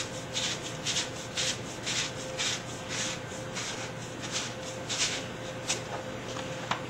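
Sandpaper rubbed around the end of a polyethylene pipe in quick scratchy strokes, about two a second, roughing up the plastic surface so the adhesive will bond.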